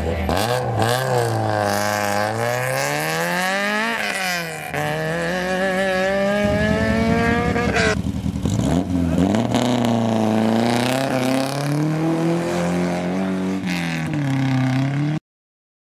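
Rally car engines revving hard under acceleration. The pitch climbs steadily, drops sharply about four seconds in and climbs again. After a break near the middle, a second car's engine rises and falls in pitch as it pulls away. The sound cuts off abruptly just before the end.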